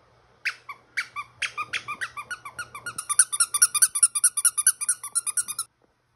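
Squeaker in a plush dog toy squeaking in a fast run of short squeaks as a small dog plays with it. The squeaks speed up and get louder about three seconds in, then stop suddenly.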